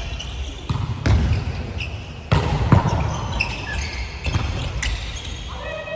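Volleyball being struck and played during a rally on an indoor court: several sharp smacks of hands and arms on the ball, the loudest pair about two and a half seconds in, each ringing on in the echo of a large hall.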